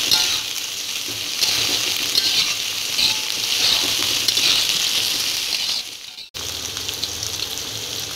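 Chopped garlic, shallots, chilies and green tomato sizzling in hot oil in a wok, stirred and scraped in repeated strokes with a metal spatula as the spice paste sautés until cooked. The sound cuts out briefly about six seconds in, then carries on.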